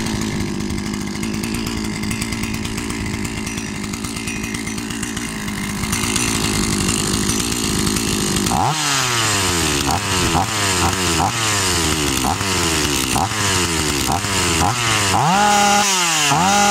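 Two-stroke chainsaw engine running with its bar and chain removed: it idles steadily for about half the time, then the throttle is blipped over and over, the revs jumping up and falling back each time, with bigger revs near the end.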